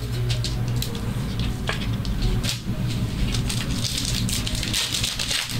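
Trading card packs and cards being handled: wrappers crinkling and cards rustling and clicking in a quick, uneven patter over a steady low hum.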